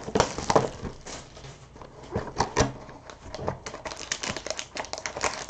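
Cardboard trading-card box being opened and its foil-wrapped card packs handled: irregular rustling and crinkling with many small clicks and taps.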